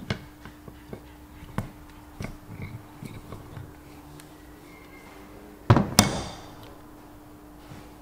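Light metallic clicks and taps as the axle nut on a tractor's front wheel hub is worked loose with a steel adjustable spanner. About six seconds in come two sharp metal clanks close together, with a ringing tail, as the spanner is put down on the bench.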